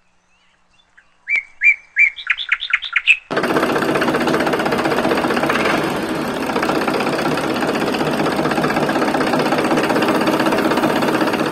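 A quick run of about eight short chirps, rising in pitch. Then, about three seconds in, the small electric motor of a miniature DIY model tractor starts and runs steadily and loudly with a mechanical whir.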